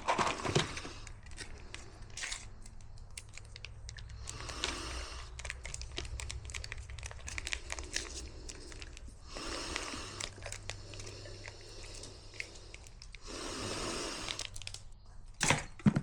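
Bag of dry dog kibble being handled while a meal is portioned out: crinkling and rustling of the bag in three longer stretches, with many small clicks of kibble throughout.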